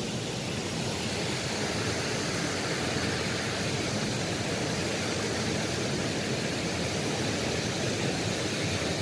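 Steady rushing of a shallow stream flowing over riffles.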